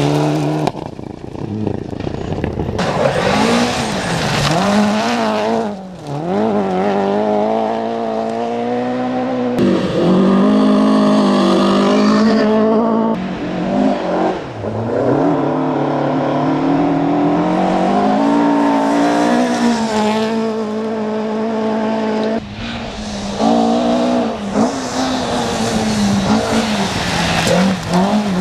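Rally cars passing one after another on a gravel stage, among them a Skoda Fabia S2000 and Ford Escorts: engines revving hard and falling away between gear changes as each car slides through a corner. The sound changes abruptly several times as one car gives way to the next.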